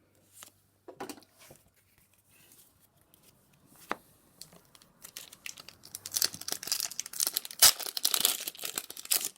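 Plastic-foil wrapper of a trading-card booster pack being handled and torn open. A few faint rustles and clicks come first, then about halfway through a dense, louder crinkling sets in, with one sharp crack.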